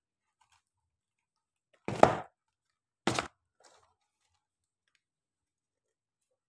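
Small cardboard product boxes being handled: two short, loud cardboard knocks or scrapes about a second apart, the first the louder, with quiet between them.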